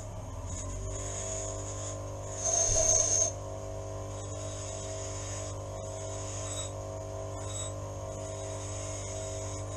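Grinder motor running with a steady hum, and a brief rasping grind of about a second, roughly two and a half seconds in, as the TIG welder's tungsten electrode tip is sharpened.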